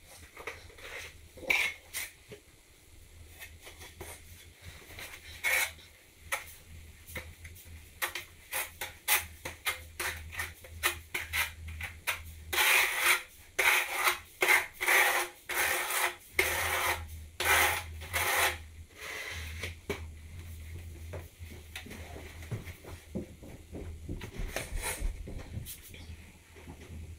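Steel trowel scraping and knocking as tile mortar is scooped from a bucket and spread across the back of a floor tile. Scattered scrapes and clinks at first, then a quick run of loud back-and-forth scrapes about halfway through.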